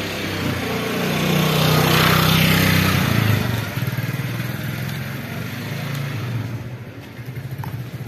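A motorcycle passing by, its engine growing louder to a peak about two to three seconds in, then fading away.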